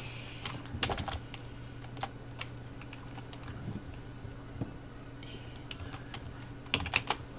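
Typing and clicking on a computer keyboard: scattered sharp keystrokes in short, irregular clusters, the busiest about a second in and again near the end, over a steady low hum.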